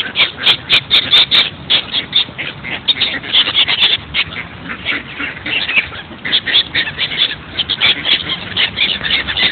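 A flock of mallards quacking close by, with many short overlapping calls several a second, thinning briefly about halfway through.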